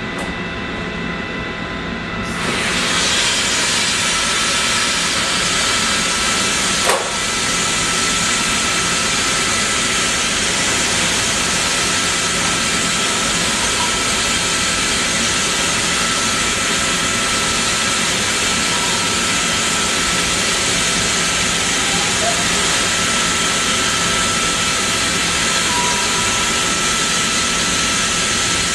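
Steady hiss of compressed air escaping from Hovair air-bearing pads floating a loaded gondola shelving unit, stepping up to full strength about two seconds in. A single sharp click about seven seconds in.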